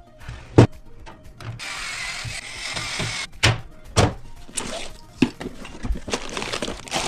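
Clicks and thunks of PC components being handled and fitted during a build, with a stretch of hissing noise about two seconds in.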